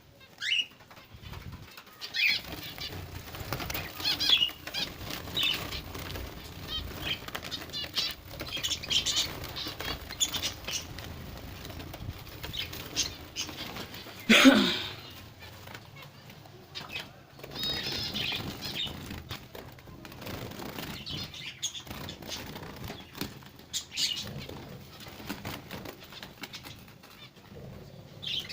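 Caged finches fluttering and flapping their wings, disturbed by a hand in the cage, with short high calls throughout. A loud burst of noise comes about halfway.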